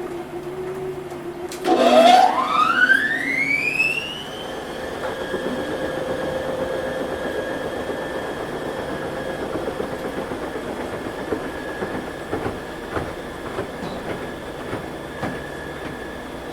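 Washing machine starting its spin cycle: about two seconds in the motor's whine climbs steeply in pitch as the drum speeds up, then holds steady at full spin speed over a rumbling hum, with occasional light knocks.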